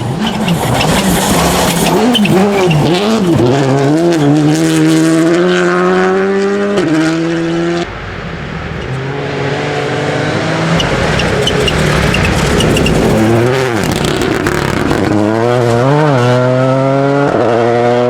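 Rally car engine run hard. The pitch wavers with quick throttle on and off, then climbs in steps as it shifts up through the gears. A cut about eight seconds in leads to a second stretch of the same: wavering throttle, then climbing through the gears.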